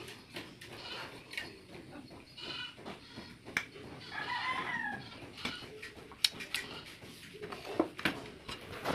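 A chicken calls once in the background, a short arched call about four seconds in. Several sharp clicks follow in the second half.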